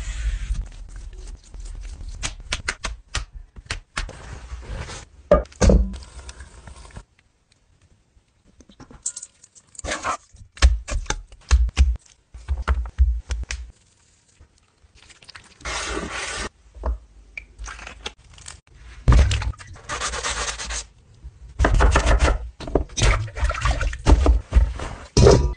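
A run of close-up kitchen prep sounds. It starts with a Y-shaped vegetable peeler scraping strips off a cucumber on a wooden cutting board. Utensil knocks and scrapes on the board follow, broken by short pauses, and near the end a hand swishes raw potato sticks in a metal bowl of water.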